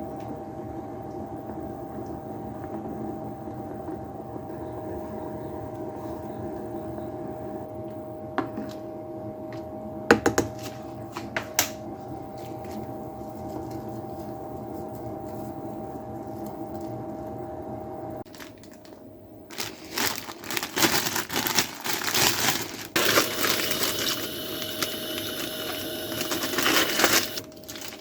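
Kitchen cooking sounds: a steady hum with a few sharp clinks, then, from about two-thirds of the way in, irregular crinkling and rustling.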